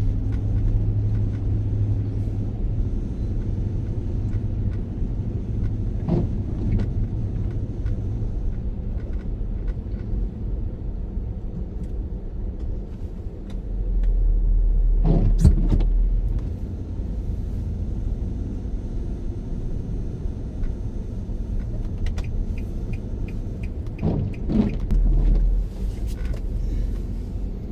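Steady low rumble of a car's cabin while driving slowly on snowy city streets, swelling louder about halfway through, with a few short knocks.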